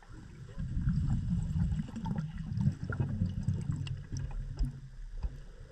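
Low, rough underwater rumble of moving water that swells about half a second in and eases off near the end, with scattered faint clicks and ticks.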